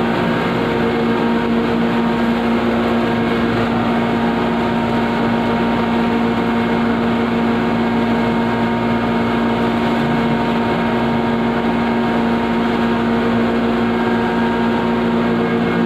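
Red chilli grinding plant machinery running: a loud, steady motor hum with several fixed tones over a rushing noise, unchanging throughout.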